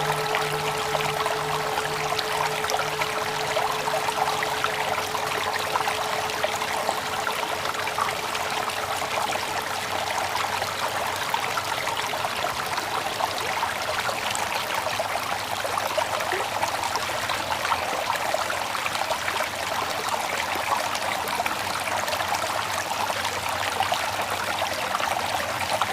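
Water trickling in a steady stream. The long, wavering hum of a struck mindfulness bell fades out over the first few seconds.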